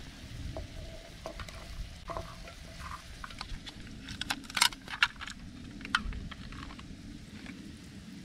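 Cooking over a campfire: scattered sharp clicks and light scrapes, busiest about halfway through, over a low steady rumble.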